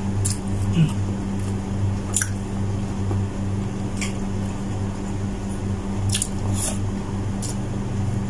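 Eating by hand: chewing cooked chicken hearts and fingers picking food off a plate, with a few short sharp clicks, over a steady low hum.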